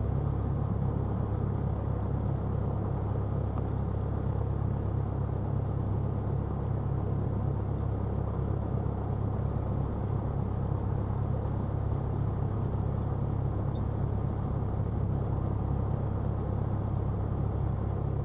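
Cessna 172's piston engine running at low taxi power, a steady low drone.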